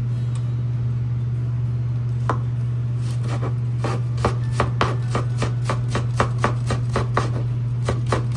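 Kitchen knife slicing a leek on a plastic cutting board: a couple of single knocks, then steady chopping at about three strokes a second from about three seconds in. A steady low hum runs underneath.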